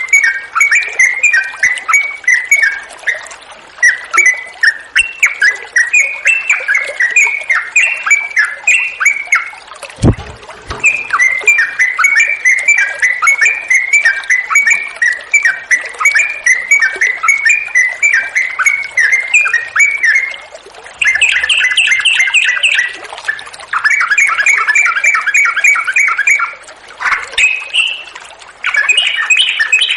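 Yellow-vented bulbul (trucukan) singing nonstop in rapid chattering phrases, a long 'ropel' run used as a lure to set other bulbuls singing, over a hiss of flowing water. A single low thump comes about ten seconds in.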